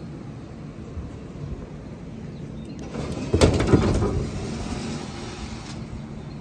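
A low steady engine rumble, then about three seconds in a loud heavy metal clank followed by a couple of seconds of rattling and scraping, from the damaged Jeep ZJ being winched and dragged onto the trailer.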